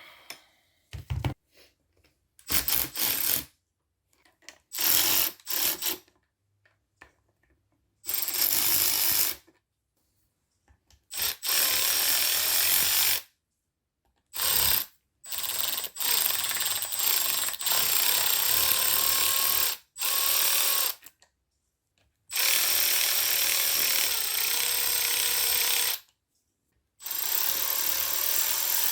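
Handheld power tool run in repeated bursts of one to four seconds with short pauses between, its motor whining and shifting in pitch as it drives the fasteners on the cylinder head.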